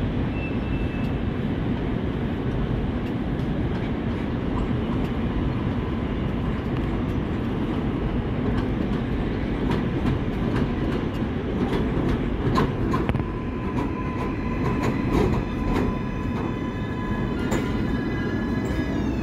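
R188 subway train pulling into an elevated station over steel track. It runs with a steady rumble, and the clicks of wheels over rail joints come more often as it nears. Near the end several high tones fall in pitch as the train slows to a stop.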